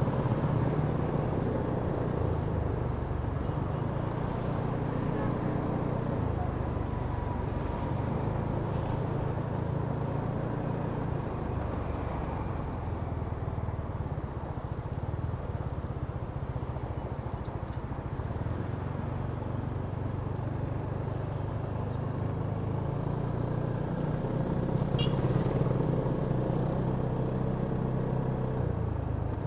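Kymco Downtown 350i maxi-scooter's single-cylinder engine running while riding in city traffic, its note shifting a little with the throttle and rising again near the end.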